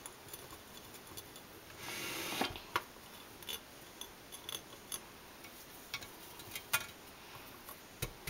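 Fingers and nails tapping and rubbing on a KitchenAid stand mixer's painted metal housing, with the mixer switched off: scattered light taps and clicks, and a short rubbing scrape about two seconds in.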